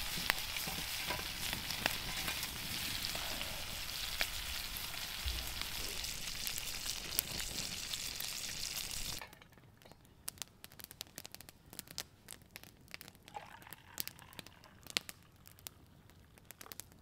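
Food sizzling and frying in a cast iron skillet over a campfire: a steady hiss with fine crackles that cuts off about nine seconds in. After that it is much quieter, with scattered small clicks and ticks.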